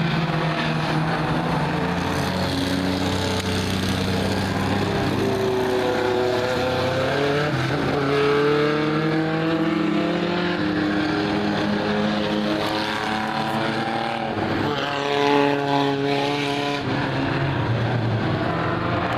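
Several race car engines running on the oval, their pitches rising and falling as they go past, over a steady roar of engine noise.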